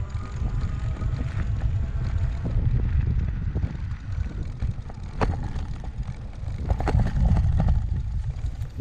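Electric bike being ridden over a bumpy grass track: wind buffets the microphone with a steady low rumble, and the bike knocks and rattles, sharply about five seconds in and several times around seven seconds. A faint whine from the 1500 W motor fades out in the first second as the pedal assist cuts out.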